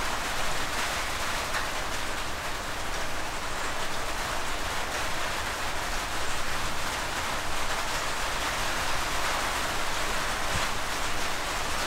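Wabeco D6000 bench lathe running steadily, turning a spindle held between the 4-jaw chuck and a live center; an even, rain-like hiss with no clear tone.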